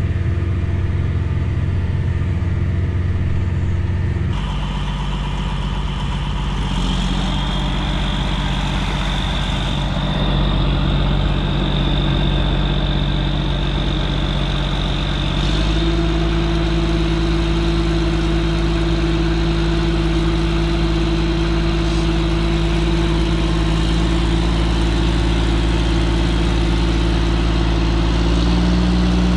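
John Deere tractor's diesel engine running steadily, first driving through floodwater, then at low revs driving a water pump that fills a lay-flat discharge hose. The engine note changes abruptly about 4 seconds in and again about 15 seconds in.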